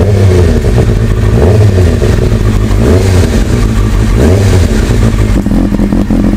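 Two carbureted sport bike engines, a 2005 Kawasaki ZZR600 inline-four and a 2005 Suzuki GS500F twin, running just after a cold start, with one engine revved briefly about four times, roughly every second and a half. The sound echoes inside an enclosed trailer.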